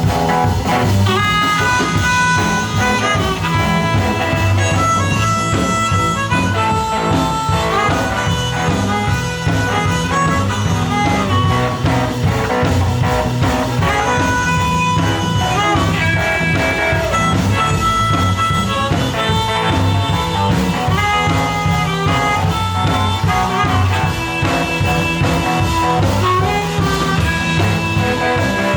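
Blues harmonica soloing over a live band's swinging backing, with a steady bass line underneath.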